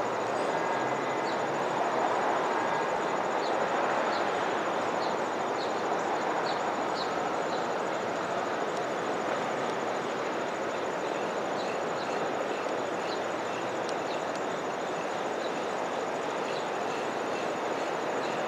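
Steady, even roar of distant city background noise, of the kind heard from traffic or a passing train. Over it come runs of short, high chirps from small birds, twice.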